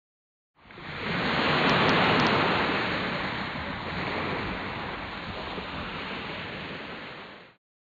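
A burst of steady rushing noise that starts abruptly, swells over the first second or so, eases off slowly and cuts off suddenly near the end.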